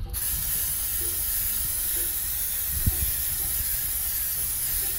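Aerosol can of freeze spray hissing in one continuous, steady blast onto a bitumen sound-deadening mat, freezing it so it can be knocked off. A faint single knock about three seconds in.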